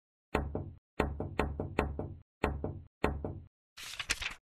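Hammer driving nails into a board: a run of sharp knocks, about six main blows each followed by a lighter tap, then a short scraping rattle near the end.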